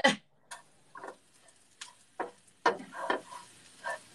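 Wooden spoon stirring and scraping dry vermicelli noodles as they toast in a nonstick skillet: a string of short, irregular scrapes and rustles.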